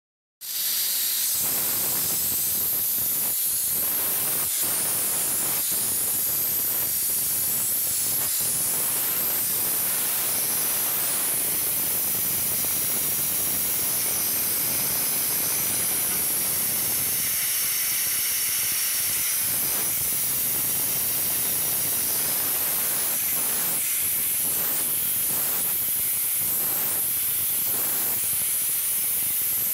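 A glass lathe's burner flame hissing steadily as it heats a spinning glass tube. The hiss cuts in about half a second in and holds an even, loud level, with its strongest part high up.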